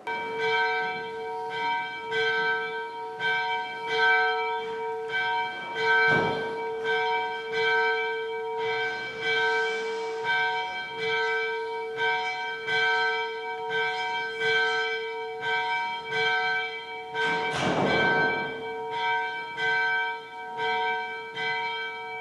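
A church bell rung quickly and repeatedly after Mass, its deep ringing hum carrying on between strokes. There are two brief louder noisy bursts, one about six seconds in and one near eighteen seconds.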